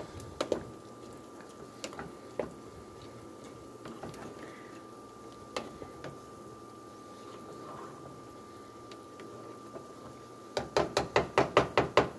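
A spatula stirring soup in a saucepan, with scattered light knocks and scrapes against the pan. Near the end comes a fast run of loud, regular knocks, about six a second, as the utensil strikes the pan's sides.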